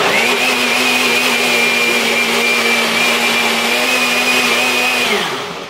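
NutriBullet blender motor running, blending pancake batter: a steady high whine over a hum. It starts abruptly and winds down, falling in pitch, after about five seconds.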